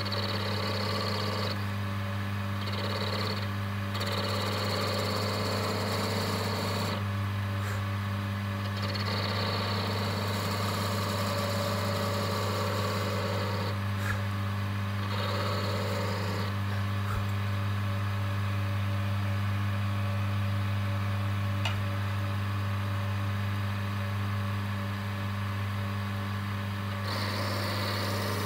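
Wood lathe running with a steady low hum while a skew chisel cuts a spinning wooden chess piece; the cutting hiss comes and goes in strokes of one to several seconds with short pauses between.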